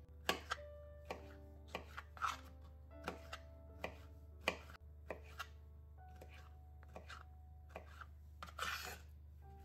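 A kitchen knife chopping fresh strawberries on a plastic cutting board: irregular sharp cuts, about one or two a second, with the blade tapping the board. Soft background music plays underneath.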